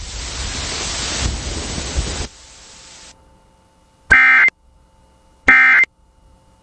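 A hiss of static for about two seconds, then two short buzzy data bursts, each under half a second and about a second apart: the Emergency Alert System's end-of-message code closing the alert.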